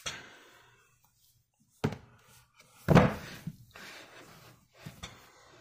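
Handheld phone being shifted and handled: a few soft thumps and rustles, the loudest about three seconds in.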